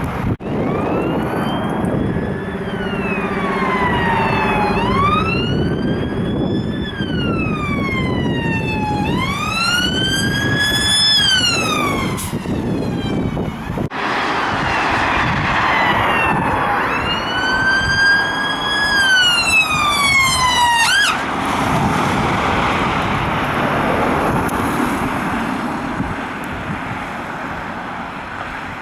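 Ambulance sirens in two passes. Each siren wails in slow rising and falling sweeps and then switches briefly to a fast yelp. Once the siren stops, passing traffic and wind on the microphone are heard underneath.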